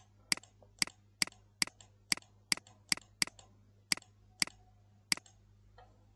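A computer mouse button clicking about eleven times, roughly two clicks a second, as browser tabs are closed one after another. A faint steady low hum sits underneath.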